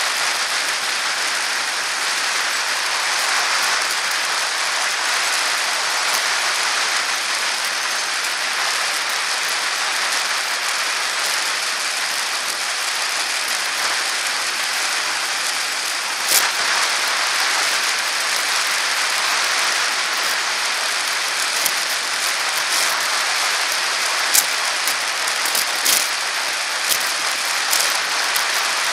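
Steady hiss of a bicycle rolling along an asphalt path, tyre and wind noise heard from a bike-mounted camera, with a few sharp clicks and knocks from bumps, more of them near the end.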